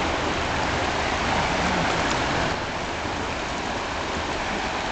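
Steady rushing of a swollen river in high flood, fast water streaming past the bank; it eases slightly about halfway through.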